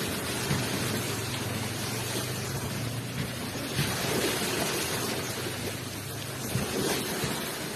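Ocean waves rushing onto the shore: a steady wash of surf with a low rumble beneath it.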